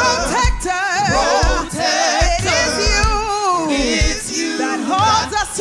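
Live gospel worship song: a lead woman singer with a group of backing singers, over keyboard and drums keeping a steady beat of about two thumps a second.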